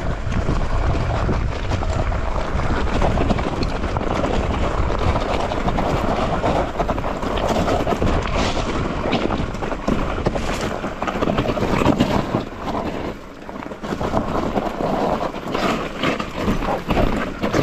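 Mountain bike running fast down a rough trail: a steady rush of tyre and wind noise over the microphone, broken by many small knocks and rattles, easing briefly about thirteen seconds in.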